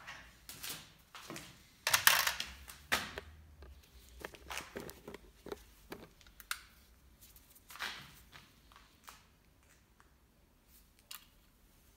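Gloved hands handling a plastic box and a pocket digital scale on a counter: scattered light clicks, taps and rustles, the loudest a short burst of noise about two seconds in.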